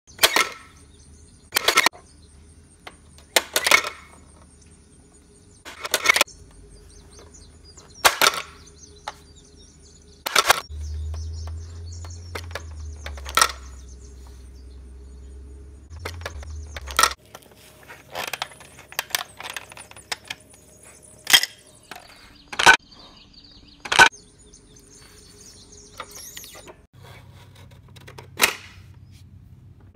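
Plastic pop-up toy being played with: about a dozen sharp clacks a second or two apart as its buttons, dials and levers are pressed and turned and its spring-loaded lids snap open. A low rumble runs for several seconds in the middle.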